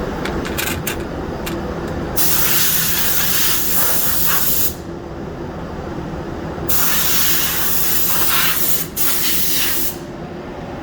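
Compressed-air powder coating spray gun spraying powder: a few short puffs, then two long hissing blasts of several seconds each. A steady low hum of shop machinery, such as the booth's exhaust fan, runs underneath.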